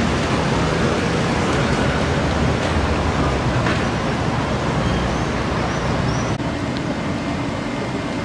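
City street traffic: road vehicles running past with a steady, dense rumble. A few faint short high chirps come about five seconds in, and the level drops slightly a little after six seconds.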